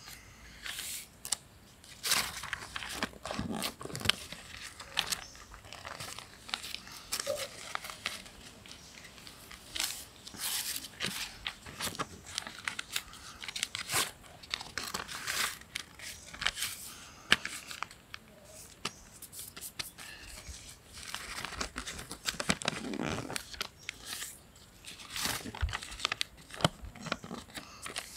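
A sheet of lined notebook paper being folded and creased by hand, rustling and crackling in irregular bursts of short crinkles.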